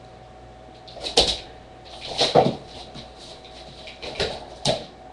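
A Weimaraner pouncing at a laser pointer dot, her paws and body knocking and scrabbling on the wooden floor and the bed: a knock about a second in, a cluster of scuffles a second later, and two more knocks near the end.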